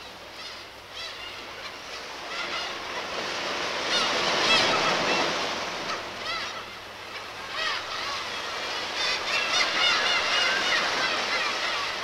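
Recorded seagull cries over the wash of ocean surf, swelling in from quiet over the first few seconds. The short, wavering calls come in scattered clusters.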